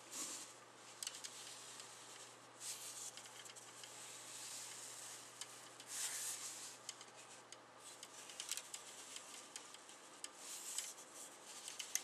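Hands turning and handling a plastic 1/100 Gundam model kit figure on a tabletop: faint rubbing and shuffling with a few small plastic clicks, over a low steady hum.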